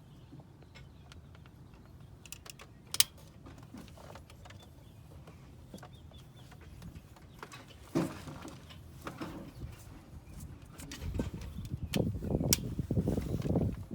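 Scattered clicks and knocks of tools and parts being handled, with a sharper click about three seconds in and a busier stretch of clattering and rustling near the end.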